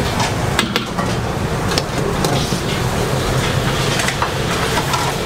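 Busy kitchen noise: a steady low rumble with scattered light clicks and knocks of metal utensils and cookware.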